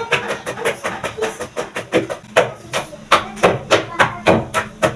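Wooden pestle pounding soft ingredients into a paste in a wooden mortar: dull thuds, softer at first, settling about two seconds in into a steady beat of about three strokes a second.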